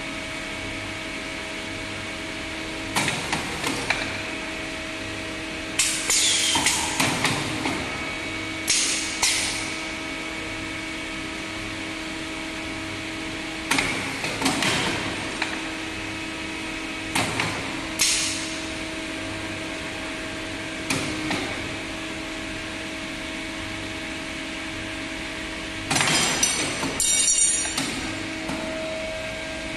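CNC wire bending machine with auto loader running: a steady hum with clusters of sharp metallic clacks and short hisses every few seconds as it works through its cycle.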